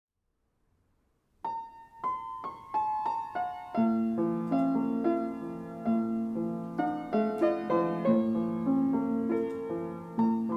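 Slow, quiet piano music: it begins about a second and a half in with a gentle line of single notes falling in pitch, and low chords join underneath a couple of seconds later.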